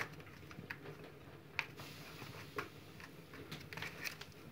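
Faint, scattered light taps and scrapes, with a sharper click about a second and a half in and a quick run of taps near the end: a cat's paws and a person's hand moving on a cardboard mat.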